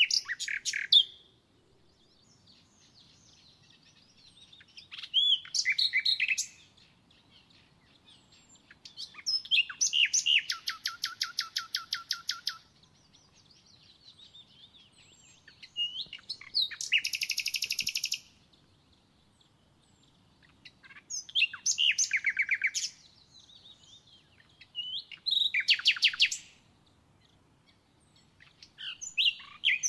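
A songbird singing: short song phrases repeated about every four seconds, each a few quick high notes running into a fast, even trill lasting one to three seconds.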